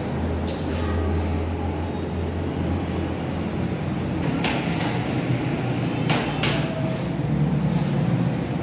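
A steady low hum, with a few short knocks and taps scattered through it.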